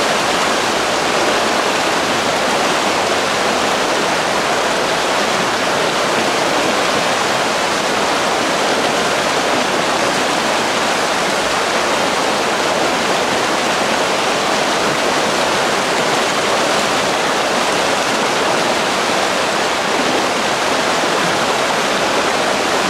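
Shallow river flowing steadily over a stony bed, a constant even rush of water.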